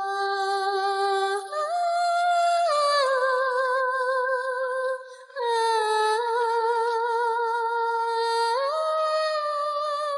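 A slow, lullaby-like melody of long held notes with vibrato, hummed wordlessly by a woman's voice, with a short pause about five seconds in.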